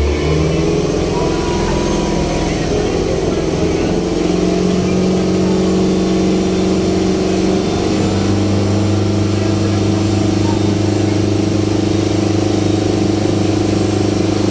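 Ferry boat's engine running steadily, a loud low drone whose note shifts about halfway through.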